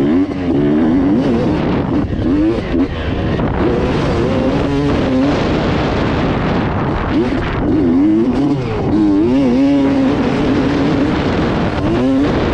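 Motocross bike engine revving, its pitch swooping up and down again and again with the throttle.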